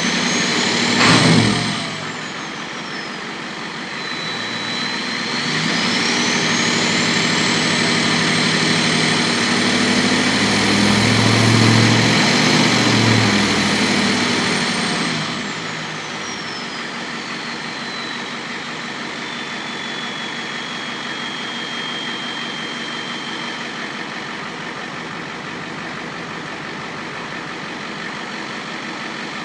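Ford 7.3L IDI V8 diesel with a Holset turbo being revved. The turbo whistle rises and falls, with a sharp loud burst about a second in. From about five seconds in a longer rev carries the whistle up to a very high pitch, and after about fifteen seconds the engine drops back to idle while the whistle winds down slowly.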